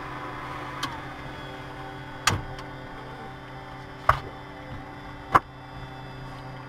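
Steady idling hum of a Diamond DA20-C1's four-cylinder Continental engine inside the cockpit, with a thin whine that cuts off with a click just under a second in as the avionics master switch is turned off. Three sharp knocks follow, spread over the next few seconds, as the checklist card is pulled out and handled.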